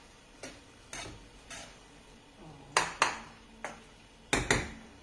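Cooking utensils knocking and scraping against a frying pan while the millet in it is stirred: a string of separate sharp knocks, the loudest coming in pairs near the middle and near the end.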